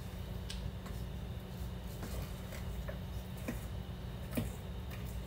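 Spatula scraping and tapping against the sides of a stainless steel mixing bowl while chocolate cake batter is folded by hand: a few light scrapes and clicks at irregular moments, one louder about four seconds in.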